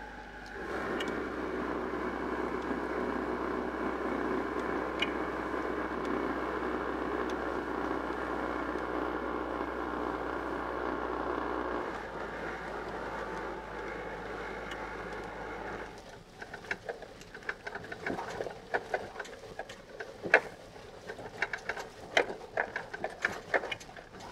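Camper van driving, its engine and road noise heard from inside the cab as a steady drone. About two-thirds of the way in the drone drops and irregular clicks and rattles take over as the tyres run onto a rough, patchy road surface.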